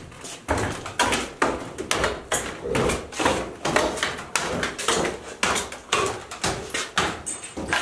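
Footsteps on a gritty, debris-strewn concrete floor, a steady walking pace of about two steps a second, each step a short scuffing crunch.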